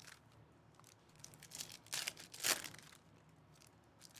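Foil wrappers of Panini Donruss Optic basketball card packs crinkling and tearing as the packs are ripped open. It comes in a few short bursts, the loudest about two and a half seconds in.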